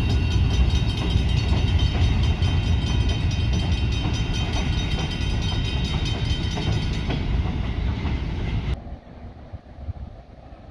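Freight train cars rolling past on steel rails, the wheels clattering with a steady high squeal over the rumble. About two seconds before the end the sound cuts off abruptly to a much quieter low rumble.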